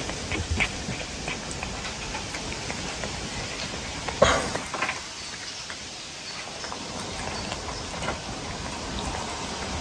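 Cat chewing and licking at a treat held in fingers: a run of small irregular crackling clicks, with one louder brief noise about four seconds in.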